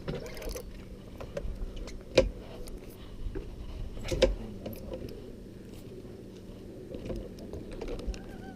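Fishing reel being cranked against a hooked fish, its gears clicking, with two louder knocks about two and four seconds in over a steady low hum.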